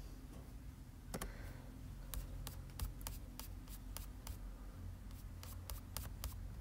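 Faint light clicks, a few at first and then about two to four a second, from taps on a tablet's glass screen, over a low steady room hum.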